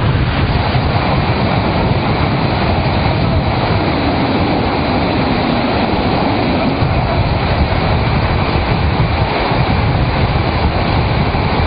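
Tsunami floodwater surging through streets and carrying cars and debris: a loud, steady rushing noise with a deep rumble underneath.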